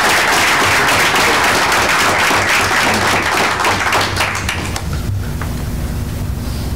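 Audience applauding: a room full of people clapping for about four and a half seconds before it dies away.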